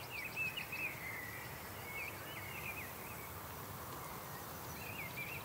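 Songbirds singing in short, quick chirping phrases, three bursts of song over a steady faint outdoor hiss.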